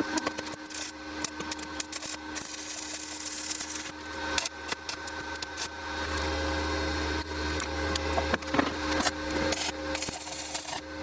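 Wood being worked with hand tools: scraping, rubbing and knocking of wooden parts, over a steady hum.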